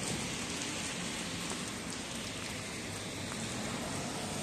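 Steady rain falling on wet paving and road, an even hiss with a few faint drop ticks.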